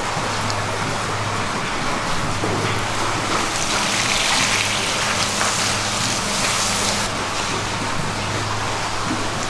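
Running water splashing onto a giant eel and a wooden cutting board as it is rinsed, heaviest from about three and a half to seven seconds in, over a steady low hum.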